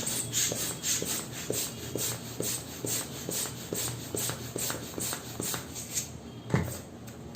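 Rhythmic airy puffs, about two a second, that stop about six seconds in, followed by a single dull thump.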